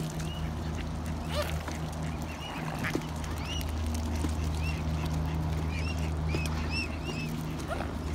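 A flock of waterfowl calling at close range: a flurry of short, high, arching calls, thickest through the middle of the stretch. A steady low hum runs underneath.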